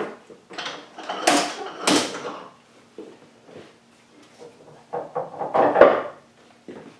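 Long wooden board being handled on a workbench. Two loud wooden knocks with a scraping tail come about one and two seconds in. A cluster of knocks follows, with the heaviest thud about six seconds in.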